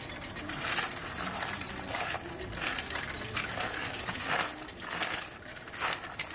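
Loose coins, mostly pennies with some nickels, dimes and quarters, clinking and jingling in irregular bursts as a hand pushes and scoops them through the intake tray of a coin-counting machine.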